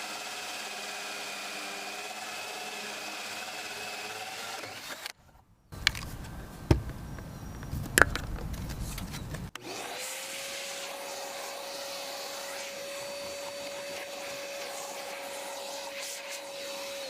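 Power drill running a hole saw into a fiberglass boat deck. A steady motor whine breaks off about five seconds in, then comes a few seconds of rough grinding with sharp clicks, and then a steady whine again.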